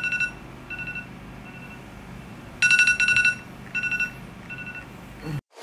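Smartphone alarm going off: short bursts of high electronic beeps, loudest about two and a half seconds in, then stopping near the end.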